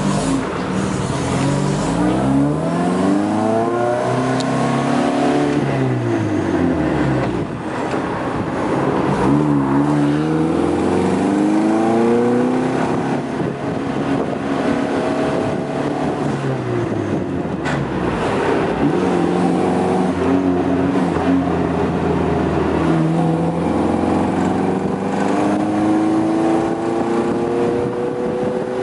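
1955 MG TF1500's four-cylinder engine running under way, its revs climbing in each gear and dropping at each shift, several times over.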